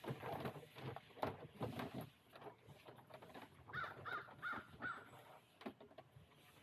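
A bird gives four short calls in quick succession about four seconds in, after a couple of seconds of knocking and rustling.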